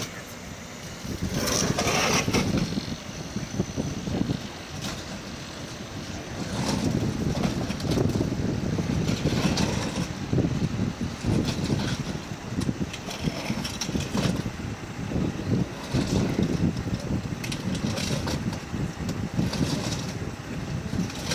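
A heavy yellow telephone box being shoved across paving stones, its base scraping and grinding on the pavement in uneven surges, with occasional knocks.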